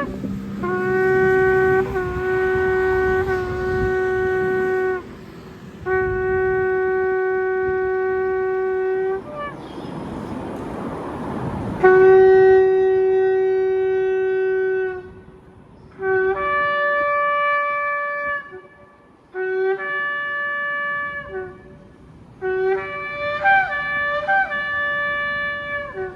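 Shofar blown in a series of blasts: three long, steady held notes, then shorter blasts with brief breaks between them, several ending with a jump up in pitch. Between the second and third long blast there is a few seconds of rushing noise.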